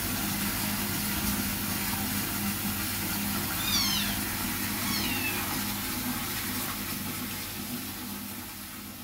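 Wet kittens mewing twice, thin high calls that fall in pitch, about four and five seconds in, over a steady low hum and hiss that fades away near the end.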